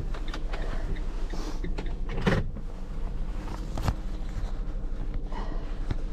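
Delivery cargo van running with a steady low engine hum, with scattered rattles and knocks and a louder thump a little over two seconds in.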